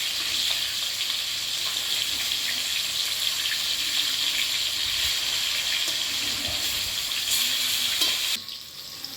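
Pieces of rohu fish frying in hot oil in a kadai: a steady sizzle with faint pops, as the fish browns to a reddish colour. The sizzle drops away sharply near the end.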